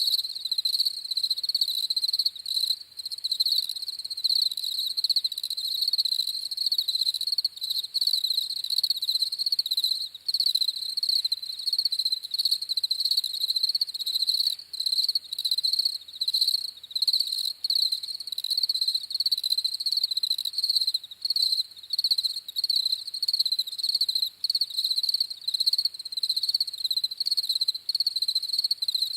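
Crickets chirping without a break: a high-pitched, rapidly pulsing chirp that stays steady throughout.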